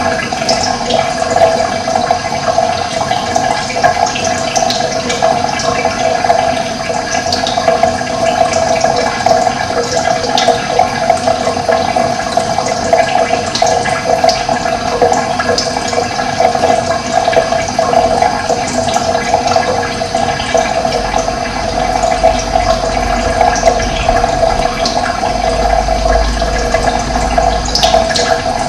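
Running water flowing steadily: a continuous rushing sound that stays much the same throughout.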